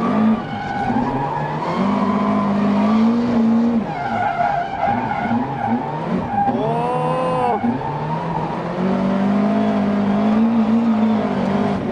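Twin-turbo 3.8-litre V8 of a McLaren MP4-12C GT3 held at high revs while the car drifts, the tyres spinning and skidding underneath. Revs hold steady for long stretches, with a quick rise and fall in pitch about seven seconds in.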